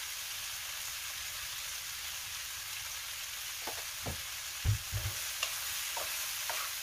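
Shell-on shrimp frying in butter and garlic in a pan, a steady sizzling hiss. A little past halfway a spatula starts stirring them, with a few clicks and a couple of dull knocks against the pan.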